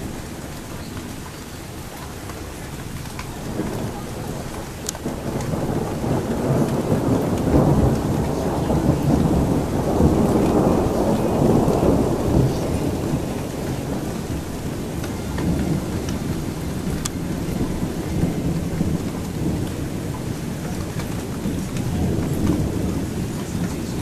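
A long roll of thunder over steady rain. The rumble builds a few seconds in, is loudest around the middle, then eases off into a lingering low rumble.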